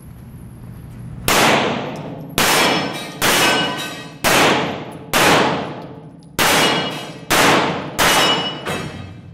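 Eight handgun shots fired about a second apart, each ringing on with a long echo off the concrete walls of an indoor range.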